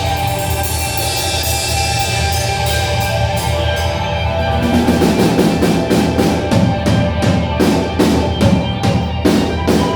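Music: a held low bass and sustained tones, with a drum kit coming in about halfway and playing a steady beat.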